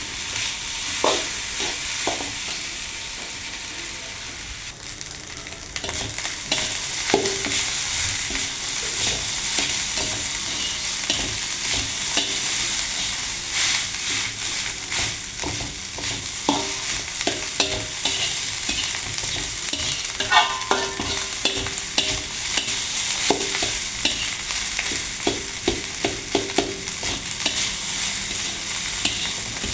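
Fried rice sizzling in a pan while a spatula stirs and scrapes it, with frequent short clinks of the spatula against the pan.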